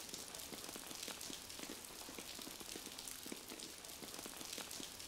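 Rain falling: a faint, steady hiss dotted with the irregular patter of individual drops.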